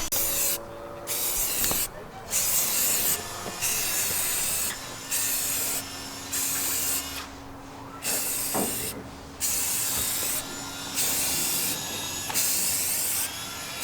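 Aerosol spray-paint can spraying in short hissing bursts, about a dozen of them, each under a second with brief pauses between.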